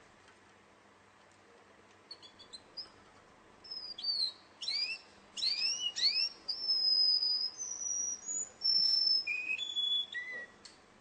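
Russian song canary singing: after about two quiet seconds, a few soft chirps, then a run of quick downward-sweeping notes, then long clear whistled notes held one after another, each stepping lower in pitch toward the end.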